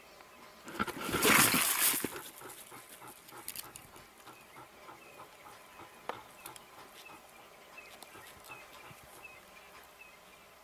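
A leopard–porcupine standoff: one loud, harsh hiss-like burst about a second in, lasting about a second, then scattered fainter clicks and rattles.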